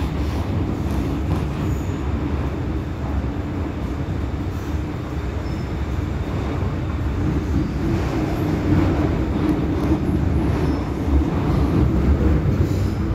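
MTR M-Train electric metro train running through the tunnel, heard from inside the car: a steady rumble of wheels on rail and running gear. It grows slightly louder in the second half.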